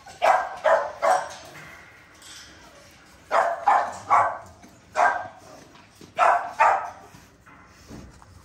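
Bully-breed dogs barking in kennel runs: about nine short, loud barks in quick runs of two or three, with quieter barks near the end.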